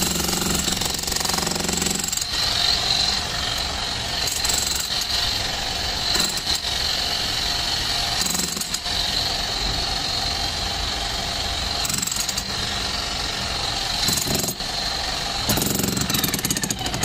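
Bosch GSH 11 E electric demolition hammer chiselling into concrete, running continuously with rapid hammering blows and a steady high note running through it.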